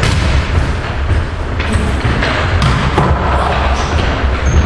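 Volleyball being struck during a rally, several sharp hits echoing over a loud, booming hall din.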